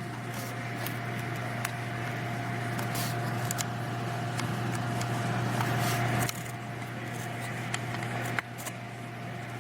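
A machine's steady hum with a thin high whine, growing slightly louder, then dropping suddenly about six seconds in and again after eight seconds, with a few faint clicks.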